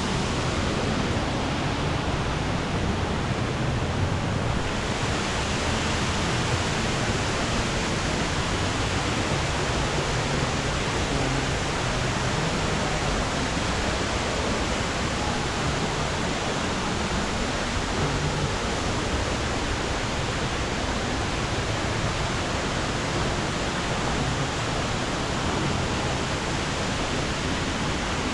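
Sera Ella waterfall's falling water rushing, a steady, even wash of noise that does not let up.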